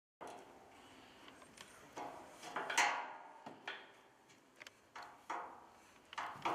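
Smoker parts being handled and bolted together: a few separate soft knocks and clatters with some rubbing in between.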